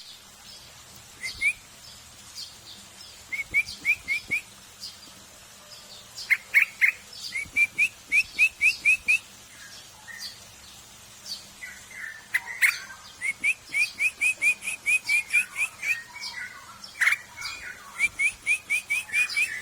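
Young straw-headed bulbul (cucak rowo) giving short rising chirps in quick runs of four to eight, about five a second, with pauses between the runs.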